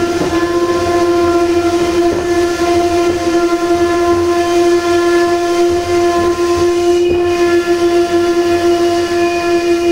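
Passenger train coaches squealing on one steady, loud tone over the rumble of the running train, with a second, higher squeal joining about seven seconds in. This is brake squeal as the train slows for a station stop.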